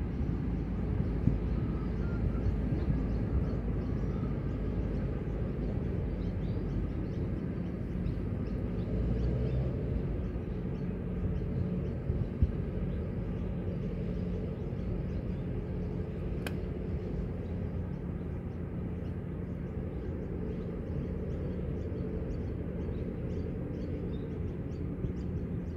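Steady low outdoor rumble in an open park, with faint, short high chirps above it.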